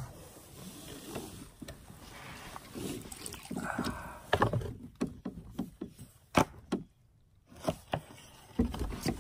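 A small paddle boat being launched and boarded: a scraping rush against the hull, then a string of sharp knocks on it, the loudest about six seconds in.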